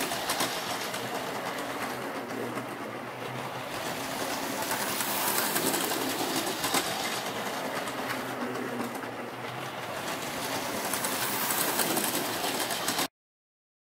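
Freshly serviced Marx O gauge Rock Island E7 A-B diesel set running on tinplate track: a steady motor whir with the rattle and clicking of wheels on the rails, rising and falling every few seconds as the train goes round the loop. The sound cuts off abruptly near the end.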